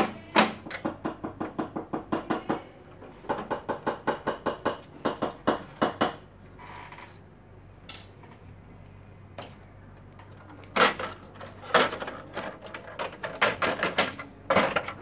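Quick runs of small sharp clicks and clacks from hands and tools working on a copier's laser scanner unit during disassembly. The clicks come several a second, stop for a few seconds in the middle, then start again.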